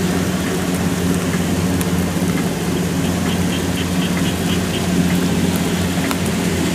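Kubota DC-108X combine harvester's diesel engine running steadily under load as it cuts and threshes a thick, flattened rice crop, with a steady hiss over it.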